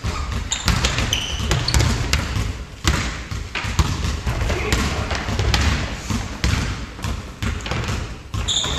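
Pickup basketball game on a hardwood gym floor: the ball bouncing and players' footsteps thudding as they run. Now and then a sneaker squeaks sharply, once about a second in and again near the end.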